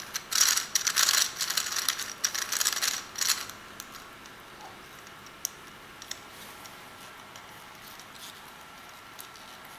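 White plastic gear cube puzzle being twisted by hand, its interlocking gears giving a rapid clicking rattle for about the first three and a half seconds. After that only a few single clicks follow.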